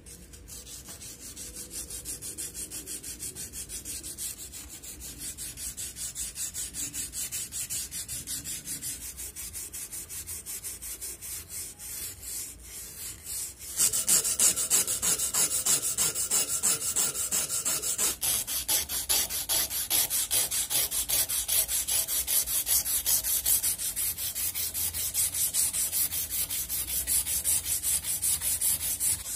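Strip of abrasive cloth rubbed back and forth by hand over a steel axe head held in a vise, a rapid run of rasping sanding strokes. The strokes grow clearly louder about halfway through as the strip is worked shoeshine-style across the blade's cheek.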